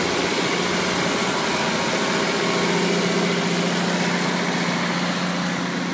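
Case IH tractor's diesel engine running steadily under load as it drives past pulling a seed drill through stubble, its level dropping slightly near the end as it moves away.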